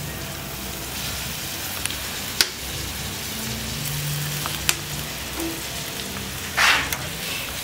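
Fish sizzling over a charcoal brazier: a steady frying hiss with a few sharp crackles, and a short louder burst of hiss near the end.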